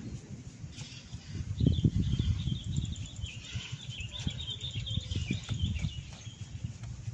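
Hands rubbing and pressing on the head and hair during a massage, heard as irregular low rustling and thumping strokes that are loudest about two seconds in. A small bird chirps rapidly in the background for a few seconds from about two and a half seconds in.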